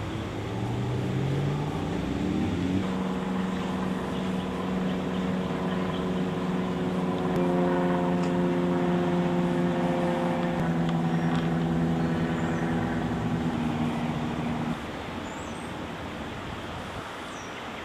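Car engine running while driving, heard with road noise. Its note rises over the first few seconds, then holds steady, and drops away about 15 seconds in.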